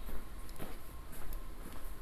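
Low rumbling background noise with a faint steady high tone and a couple of light clicks about half a second in.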